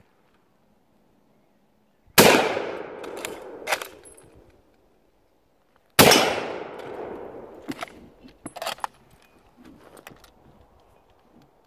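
Two shots from a .303 Lee-Enfield No1 Mk III SMLE bolt-action rifle, about four seconds apart, each trailing off over about two seconds. After each shot come a few sharp metallic clacks as the bolt is worked.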